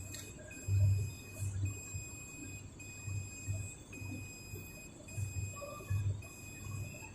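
Mini jewellery laser spot welder running: a steady high-pitched whine that breaks off briefly about once a second, over a low hum that pulses roughly twice a second.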